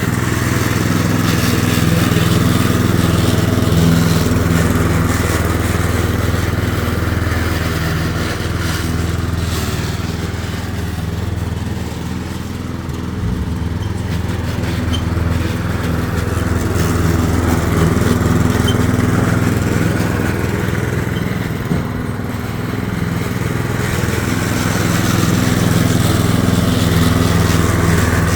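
Petrol lawn mower's Briggs & Stratton 650 series 190cc single-cylinder engine running steadily at full throttle. Its level eases off a little twice and comes back up.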